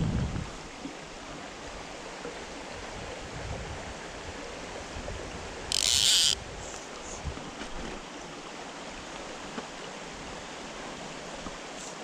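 Shallow mountain stream flowing steadily over stones. About halfway through comes a brief high zip, about half a second long, as fly line is drawn off the fly reel.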